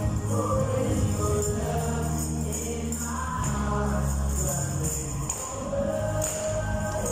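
Worship music with a choir singing over long held bass notes, and a tambourine jingling through it.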